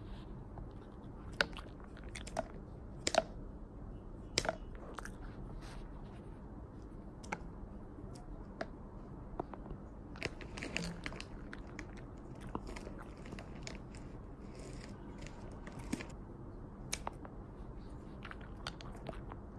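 Bichon Frise chewing small pieces of dog treat, with irregular sharp crunches and clicks of the jaws.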